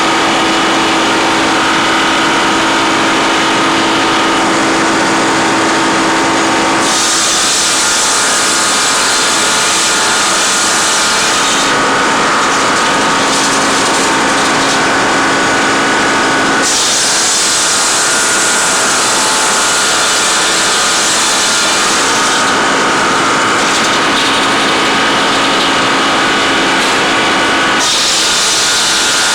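Engine-driven tree-cutting machinery running loudly with a saw cutting through wood. The sound changes abruptly several times.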